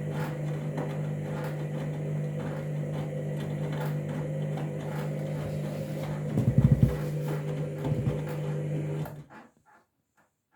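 Candy washing machine running as its programme starts: a steady electric hum with faint regular clicks, louder low rumbles about six and a half and eight seconds in, then the machine stops abruptly about nine seconds in.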